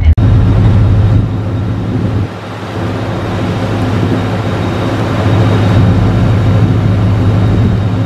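A vehicle engine running steadily: a loud low hum under a rushing noise, which dips about two seconds in and then builds back up.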